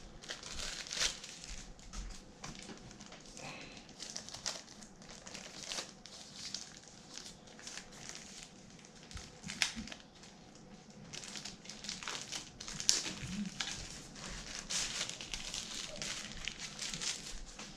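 Packaging crinkling and rustling as items are handled and taken out of a box, with irregular crackles and a few sharper clicks.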